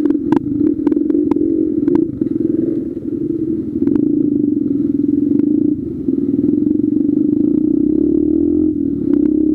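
Dirt bike engine running as the bike rides along a rough dirt trail, with sharp rattling clicks in the first two seconds; the engine note dips briefly about six seconds in and again near the end.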